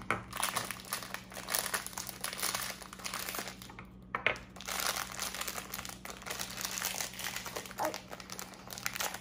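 Crinkling and rustling of a plastic blind bag being handled and pulled open, with a sharp click about four seconds in.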